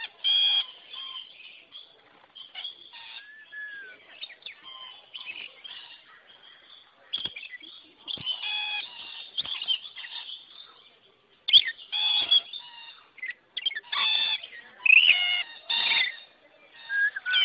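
Rainbow lorikeets chattering and screeching: shrill, harsh calls coming in clusters, loudest and densest in the second half.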